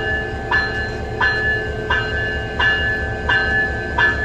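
Diesel locomotive rolling very slowly, its engine running with a low hum. A short, high squeal repeats about every two-thirds of a second as it moves.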